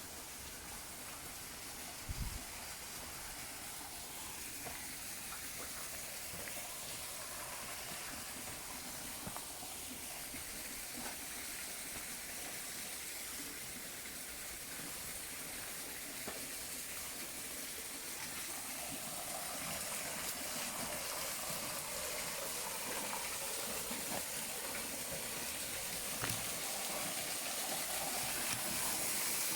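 Rushing water, a steady hiss that grows gradually louder, with a single low bump about two seconds in.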